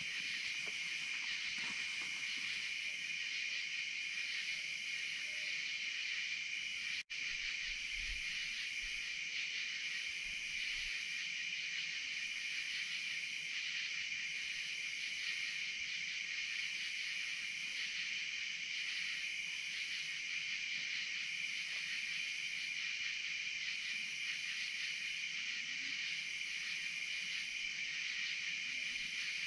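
Steady chorus of night insects, a shrill even drone with a second, higher insect call pulsing on and off about every two seconds. The sound cuts out for an instant about seven seconds in.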